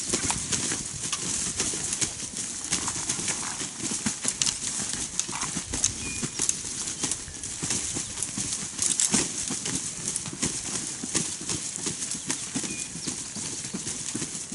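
Shot wild turkey gobbler flopping on the forest floor: irregular rapid thumps and rustles of wings beating and body thrashing in dry leaves, the reflex flopping of a mortally hit bird.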